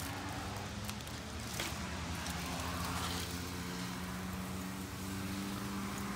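Steady low mechanical hum, like a motor running at a constant speed, with a couple of faint clicks about a second in.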